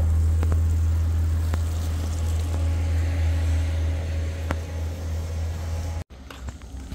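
A vehicle engine running with a low, steady rumble that slowly fades, with a few faint clicks over it; it cuts off suddenly about six seconds in, leaving quieter sound.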